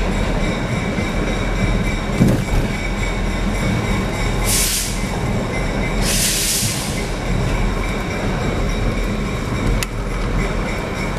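EMD GP38-2 diesel locomotive running on street track close by, its engine and wheels heard from inside a car pacing it. There are two short bursts of hiss about four and a half and six seconds in, and a single click near the end.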